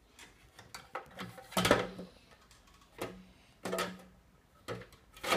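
Plastic iceberg of a children's penguin board game being turned on and set back onto its plastic base: a series of hard plastic knocks and clatters, some with a short rattle, roughly one every second or so.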